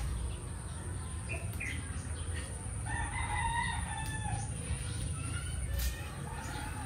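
A rooster crowing: one long crow about three seconds in, then a fainter call a couple of seconds later, over a steady low rumble.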